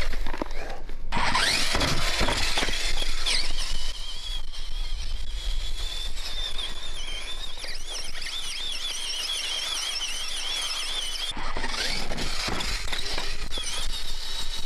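Electric drive of a Spin Master Grave Digger Trax RC truck running on its rubber tracks, a high whine that wavers up and down in pitch with the throttle. The whine breaks off about eleven seconds in, then picks up again.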